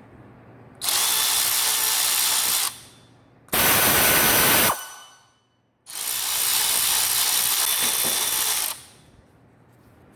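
Milwaukee M12 Fuel 3/8-inch cordless ratchet running in three bursts: about 2 seconds, then a shorter, deeper-sounding run, then about 3 seconds, with short pauses between.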